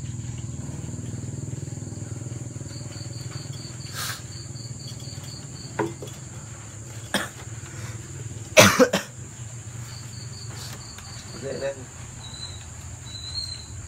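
Crickets chirping in a steady pulsed rhythm over a low hum, with a few short knocks as the hanging orchid pots and their wire hangers are handled. A brief loud knock-like sound stands out near nine seconds.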